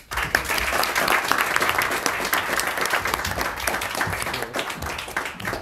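Audience applauding: many people clapping at once, starting suddenly and easing off toward the end.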